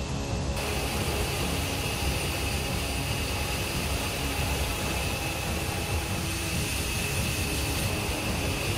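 Jet airliner in flight: steady turbofan engine noise with a faint steady high whine.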